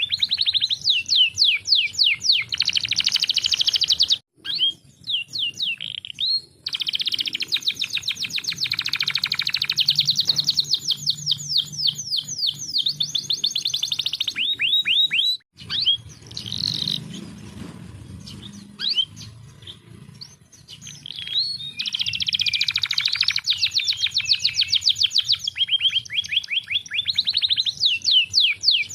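Domestic canary singing long, fast rolling trills of rapidly repeated notes, with a quieter, sparser stretch in the middle. The song cuts out abruptly twice, about 4 seconds and 15 seconds in.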